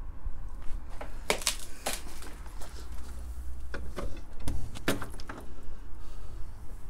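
Footsteps and about half a dozen sharp knocks and clatters on a debris-littered floor as someone picks their way through a derelict room, over a steady low rumble.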